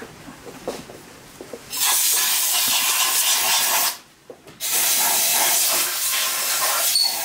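Pressurised spray hissing in two long bursts, about two seconds and three seconds long with a short gap between, as the stripped Bernina 217 sewing machine head is washed out. A few faint handling clicks come before the first burst.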